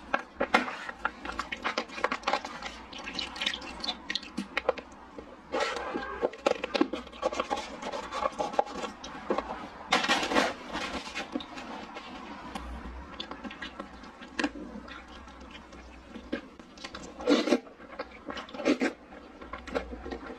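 Wet eating sounds from a bowl of milk tea poured over purple rice, glutinous rice balls and tapioca pearls: liquid sloshing, a spoon clicking in the bowl, and several louder slurps.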